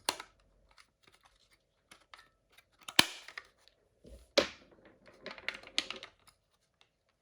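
AA batteries being fitted into the plastic battery compartment of a Kidde Nighthawk smoke and carbon monoxide alarm: scattered clicks and knocks of plastic and batteries being handled, the sharpest about three seconds in and again about four and a half seconds in, with a run of smaller clicks after.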